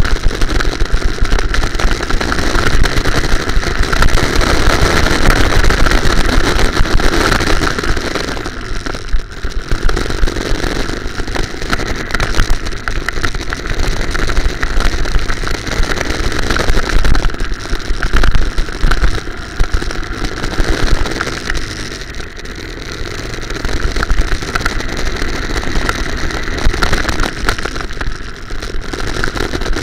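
Go-kart engine running at high revs, heard from a camera mounted on the kart, with heavy low rumble from vibration; the engine note drops briefly several times as the throttle is lifted for corners.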